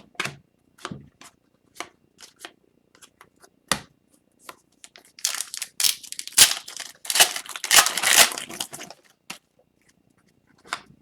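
Trading cards handled with scattered light clicks and slides, then an Upper Deck Series 2 hockey card pack wrapper torn open and crinkled for about four seconds, starting about five seconds in.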